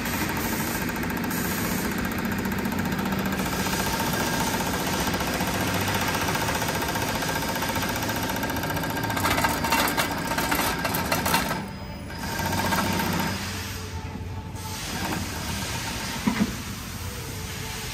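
Weitu 300U chain-stitch sewing head on a mattress tape edge machine running steadily as it stitches binding tape onto a quilted mattress edge. There is a louder clattering a little past halfway, and the machine noise briefly drops twice soon after.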